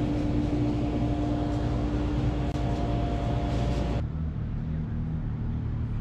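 Shop room noise with a steady electrical hum, which cuts off abruptly about four seconds in to outdoor street noise with the low rumble of a vehicle engine running.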